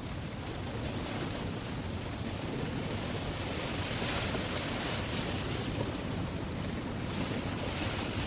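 Steady rush of sea and wind around a sailing ship under way, swelling and easing a little.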